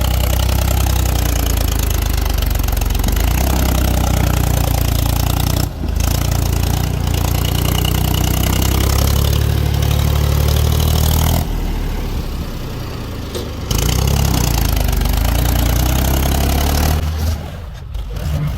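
Mahindra 275 DI tractor's diesel engine running steadily with a strong low rumble, breaking off abruptly and changing a few times.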